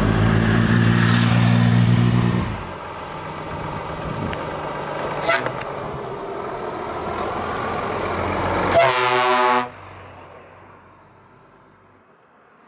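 Trucks driving past with air horns sounding: a loud, steady multi-tone horn blast that stops about two and a half seconds in, then quieter truck engine and road noise, and a short horn toot near the nine-second mark, after which the sound fades away.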